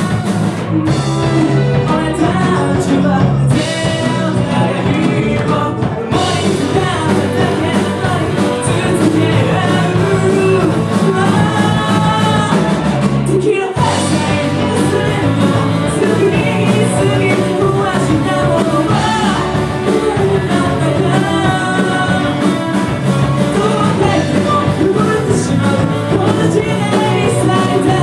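Live rock band playing a Japanese rock song: a male singer over electric guitars, bass, drums and keyboard, with a very brief stop in the band about halfway through.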